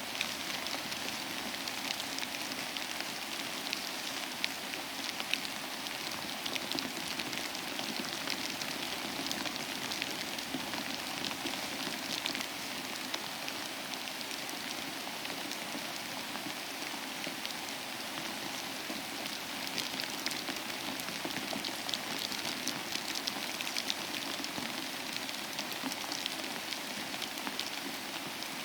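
Steady rain falling, a continuous even hiss flecked with the close ticks of individual drops hitting a surface.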